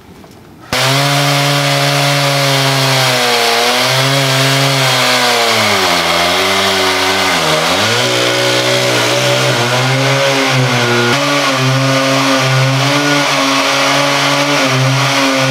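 Stihl GS 461 concrete-cutting chainsaw's two-stroke engine running hard as its diamond chain cuts into reinforced concrete. The engine note sags under load for a couple of seconds in the middle, then picks back up. The sound cuts in abruptly about a second in.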